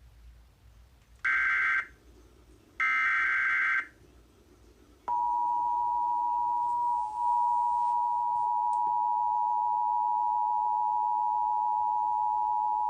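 Emergency Alert System broadcast: two short buzzy bursts of SAME digital header data, then, about five seconds in, the steady two-tone attention signal, which holds for about eight seconds. Together they announce an emergency alert, here a National Weather Service severe thunderstorm warning.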